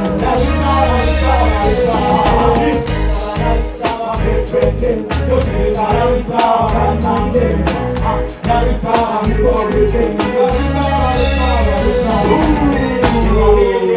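Loud concert music through the PA: a band with a steady heavy beat, and men singing over it into microphones.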